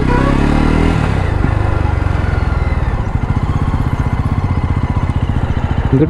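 Jawa motorcycle's single-cylinder engine, its revs falling during the first second, then running at low speed with a steady exhaust beat.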